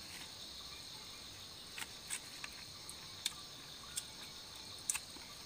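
Steady high-pitched chorus of insects in the forest, with a few short, sharp clicks scattered through it.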